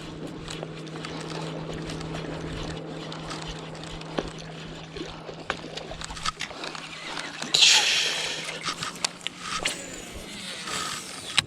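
A boat motor's steady low hum, with scattered sharp clicks and a loud burst of rushing noise about eight seconds in.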